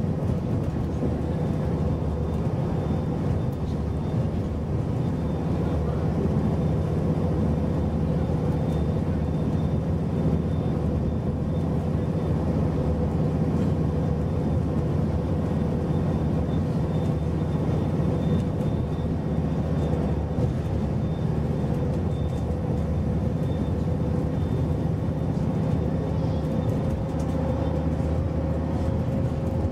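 Onboard sound of a Scania Enviro400 double-decker bus cruising at speed: a steady engine and drivetrain drone over tyre and road noise, the engine note rising slightly near the end.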